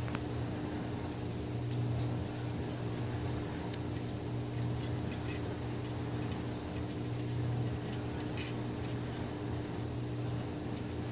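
A steady low mechanical hum, like a fan or appliance running in the room, with faint scattered ticks and taps of a kitten's claws and paws on a wooden TV tray.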